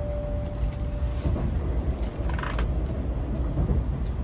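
Low, steady rumble of a Shinkansen train, with a steady electronic tone that stops about a second in.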